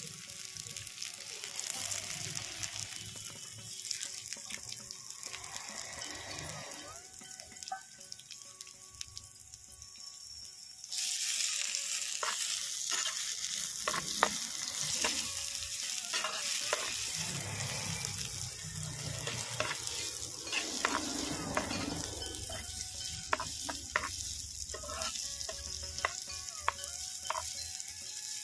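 Sliced onions sizzling in hot oil in a clay pot. The sizzle steps up sharply about a third of the way in, and from then on a metal spatula stirring the onions scrapes and taps against the pot.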